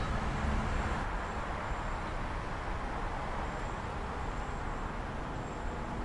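Steady rushing noise with an uneven low rumble, without any clear pitched sound.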